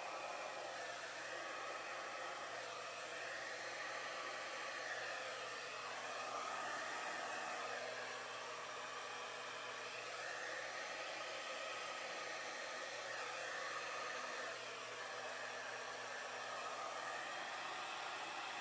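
Hand-held hair dryer running steadily, blowing wet acrylic paint outward into bloom shapes, its rushing air sound swelling and easing slightly as it is moved over the canvas.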